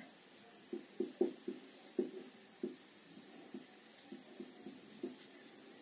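Marker pen writing on a whiteboard: a dozen or so short, irregular faint taps and squeaks as the strokes are drawn.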